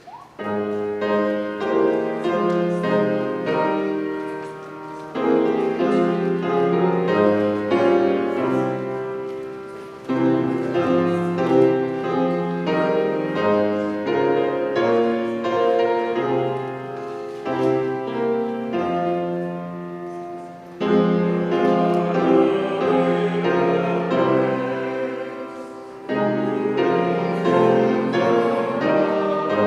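Piano playing a slow hymn in full chords, phrase by phrase, with brief breaks between phrases.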